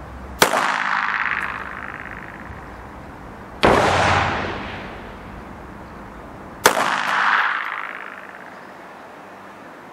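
Three single pistol shots from a Frommer 37M in 9mm Browning Short, about three seconds apart, each followed by a long echoing decay.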